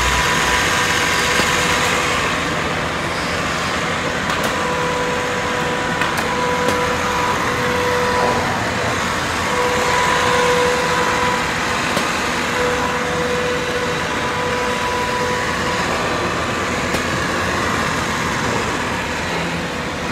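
Woodmaster WM-1325RB CNC router machining a wood panel: a steady rush of spindle and cutting noise. A thin whine drops in and out every second or two.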